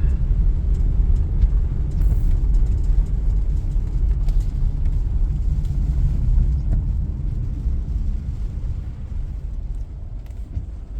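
Low rumble of a car driving, heard from inside the cabin, easing off near the end.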